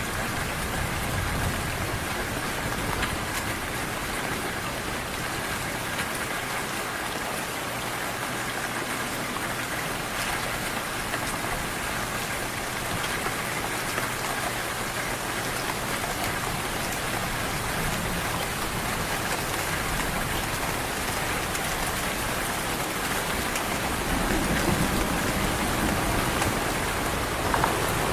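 Heavy rain falling steadily, a dense, even hiss of drops. A low rumble swells in during the last few seconds.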